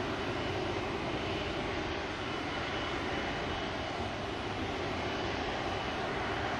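Jet engines of an Air Berlin Boeing 737-300 (CFM56-3 turbofans) running steadily as the airliner moves along the runway: an even rushing noise with a faint, thin high whine over it.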